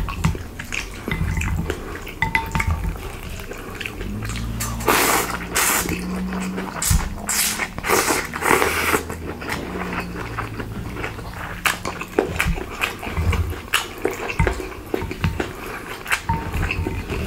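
Close-miked eating sounds: many quick wet clicks and smacks of chewing. Several longer noisy stretches fall in the middle, along with a low hum.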